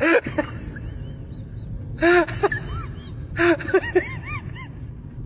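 A cat giving short chirping calls in quick runs of two to four, each call rising and then falling in pitch.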